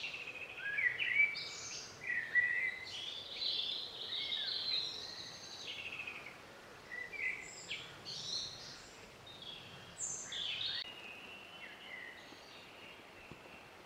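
Woodland birdsong: a songbird singing a string of varied, quickly changing high phrases with short gaps between them, over a faint steady background hiss. The song thins out and grows fainter in the last few seconds.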